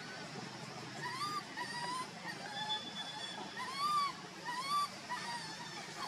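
Baby macaque whimpering: a string of short, high calls, each rising and then falling in pitch, about one every half second to second. The loudest comes about four seconds in.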